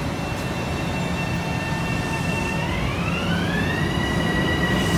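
Metro-North electric multiple-unit train pulling out of the station, its traction motors giving a steady whine over a low rumble. About two and a half seconds in the whine rises in pitch as the train picks up speed, then levels off at the higher note.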